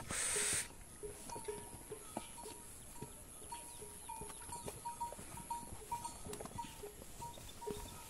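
Herd of cattle in a pen: a brief rush of noise at the start, then scattered knocks and a steady run of short ringing tones at two pitches, a few a second.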